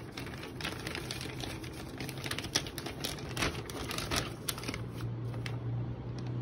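Thin clear plastic bag crinkling and rustling in a dense run of irregular crackles as a cardboard cake box is drawn out of it, with a low steady hum underneath.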